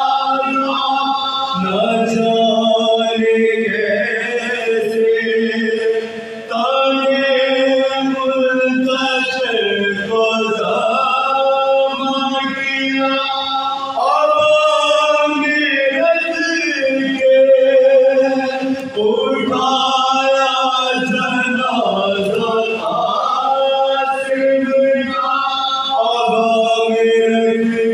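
A group of men chanting a soz, a Shia mourning lament, without instruments: a lead voice with the others singing along in long, held, drawn-out phrases.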